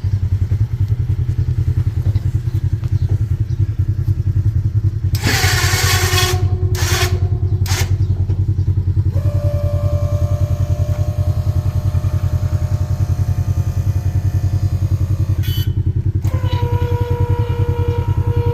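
2022 Polaris RZR's engine idling steadily. About five seconds in comes a burst of hiss with two short repeats, then from about nine seconds a steady whine that breaks off briefly and resumes at a lower pitch.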